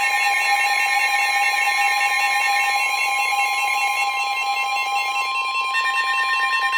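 NOAA Weather Radio 1050 Hz warning alarm tone: one steady, unbroken tone that cuts off near the end, the signal that a new warning message is about to follow. Other steady alarm tones sound along with it.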